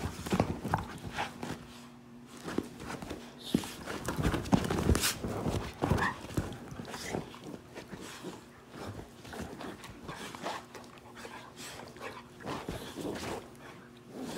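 Two pit bulls play-fighting, mouthing at each other: scattered dog vocal sounds and panting over the scuffling of bodies and paws on couch cushions, busiest and loudest in the middle.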